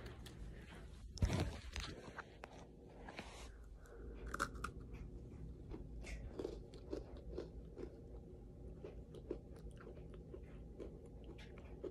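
A person chewing and crunching close to the microphone: faint, scattered crunches and clicks, with one louder burst about a second in.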